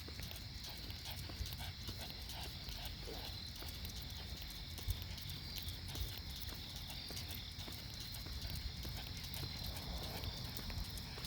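Footsteps of a person walking a dog at night: a steady run of short clicking steps, over a low rumble and a steady high-pitched background drone.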